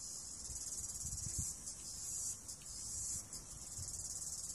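A steady, high-pitched chorus of insects chirping, with faint low rustling and thuds underneath.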